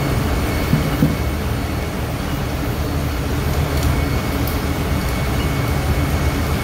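Oxy-acetylene torch flame burning steadily as it heats an electric motor's rotor shaft, over a steady low machinery rumble. Two short knocks come about a second in.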